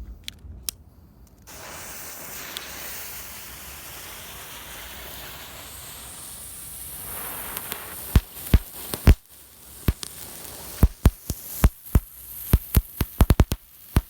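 Two small flashing fountain fireworks hissing steadily as they spray sparks, starting about a second and a half in. From about eight seconds in they give a run of sharp cracks that come faster near the end.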